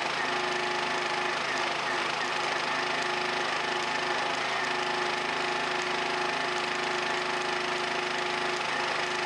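Stick-welding (shielded metal arc) arc burning steadily: a continuous crackling hiss with a constant electrical hum under it.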